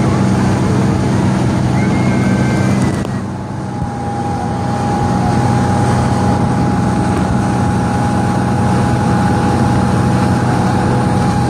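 Motorboat engine running steadily under way, with wind and wake noise. A steady higher whine joins in about four seconds in, just after a brief dip in level.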